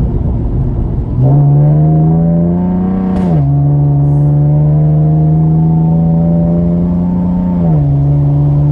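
Chevrolet Camaro's engine heard from inside the cabin, pulling through a gear with a rising pitch, then dropping as it shifts up about three seconds in and holding a steady cruise. Its pitch steps down slightly again near the end.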